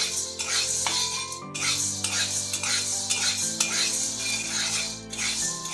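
A spatula stirring and scraping dry whole mung beans in a hot kadai as they roast, in repeated strokes a few times a second.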